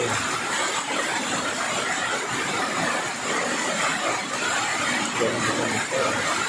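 Heavy rain and strong wind: a steady, even rushing noise.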